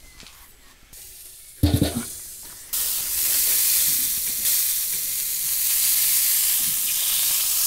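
A thump about a second and a half in as the smoker is opened, then from about 2.7 s a steady sizzling hiss from the open, still-hot tank smoker holding freshly hot-smoked chickens.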